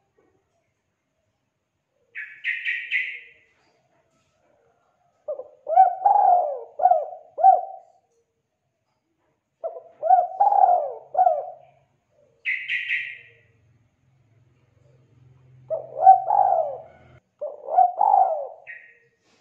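Spotted dove cooing in four phrases, each a short run of rising-and-falling coos. A short, higher chirping call comes twice between the phrases, once near the start and once midway.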